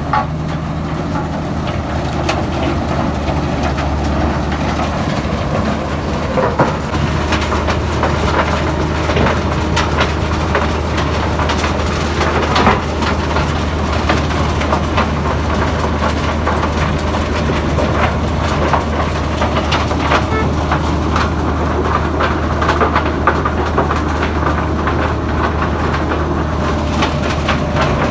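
Heavy diesel road-construction machinery running steadily, with a constant low engine hum and a stream of rattling and clanking.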